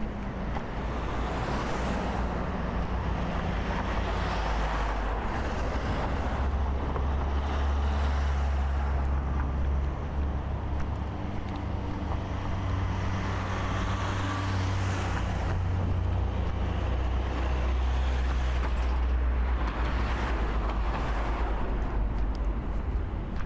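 Street traffic: a steady low engine rumble, with vehicles passing several times, each rising and fading over a few seconds.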